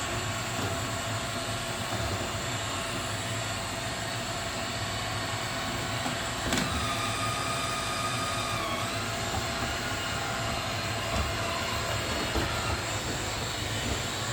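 Roomba robot vacuum running, a steady whir of its motor and brushes. About halfway through there is a knock, followed by a higher whine for about two seconds.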